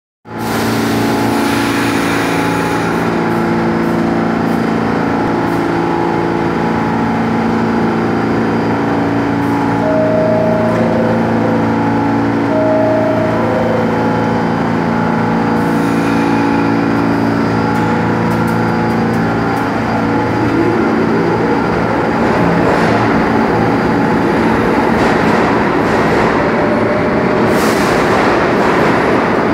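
R46 subway train standing at an underground platform with a steady hum, two brief tones about halfway through, then departing: a rumble that builds from about two-thirds of the way in as it gathers speed.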